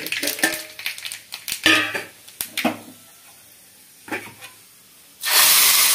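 Metal pans and utensils clinking and clattering as a small tadka pan of hot oil with mustard seeds and urad dal is handled. About five seconds in, a sudden loud, steady sizzle starts as the hot tempering hits the wet chutney.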